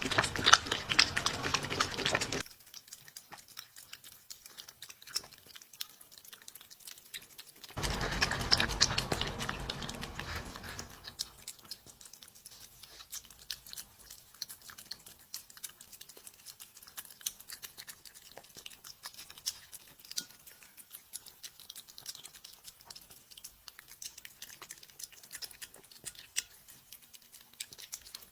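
A dog chewing and crunching its food: a run of quick, close crunches and clicks. It is louder and denser at the start and again from about eight to eleven seconds, and fainter in between and afterwards.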